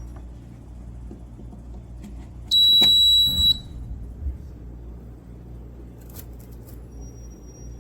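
A single electronic beep from the toaster oven's control panel, one steady high tone lasting about a second, a third of the way in, over a low steady hum. A few faint clicks follow later.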